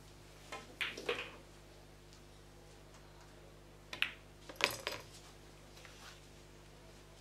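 Pool balls clacking on a billiard table: a cue tip strikes the cue ball about four seconds in, and the cue ball knocks into an object ball, which drops into the corner pocket. A few quieter knocks come about a second in.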